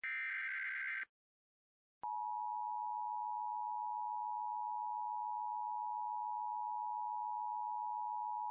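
Emergency Alert System broadcast. It opens with the last of the SAME header data bursts, about one second of harsh, warbling digital screech. After a second of silence, the EAS two-tone attention signal starts about two seconds in and holds steady.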